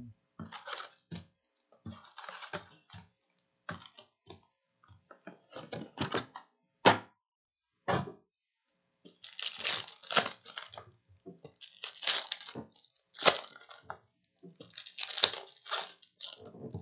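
Foil wrappers of 2017-18 Hoops basketball card packs crinkling and being torn open by hand, in irregular bursts with an occasional sharp click. The crinkling becomes denser about halfway through, as the packs are opened.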